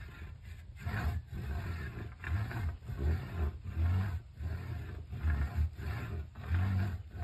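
Worm fiddling: a stake cut from a sapling and driven into the ground, rubbed in steady back-and-forth strokes about two a second. It gives a loud, low grinding rasp, the vibration sent into the soil to bring earthworms to the surface.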